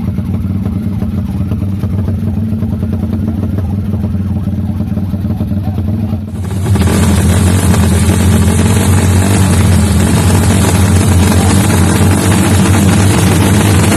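Race motorcycle engines running loudly with a steady drone. About six seconds in, the sound becomes suddenly louder and harsher and stays so.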